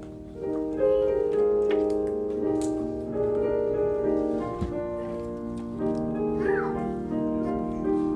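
Keyboard music playing slow, held chords.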